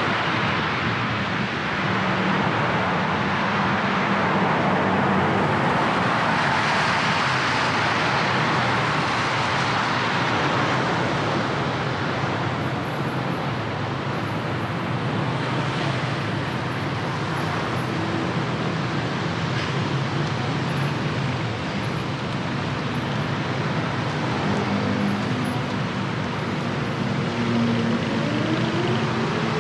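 City road traffic on wet streets: a steady hiss of tyres on wet asphalt over the low hum of engines. A rising whine comes in near the end.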